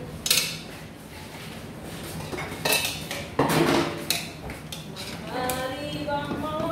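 Metal serving ladle and tongs scraping and clinking against a stainless steel cooking pot as biryani rice and fish are scooped out, with several sharp clinks and a longer scrape about halfway through.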